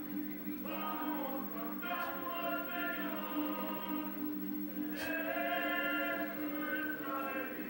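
A choir singing slow, held notes, played back through a television speaker, with a steady low hum underneath.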